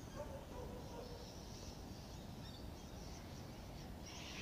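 Quiet outdoor riverside ambience: a low, steady background noise with a few faint, short bird calls.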